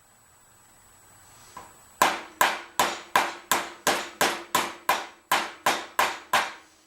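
Hammer striking metal: thirteen even blows, about three a second, starting about two seconds in, each with a brief metallic ring.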